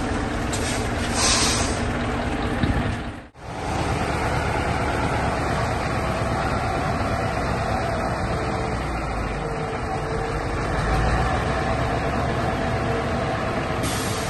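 Diesel engine of a Scania crane truck running steadily as the loaded truck moves slowly over gravel. The sound drops out for a moment about three seconds in, then carries on.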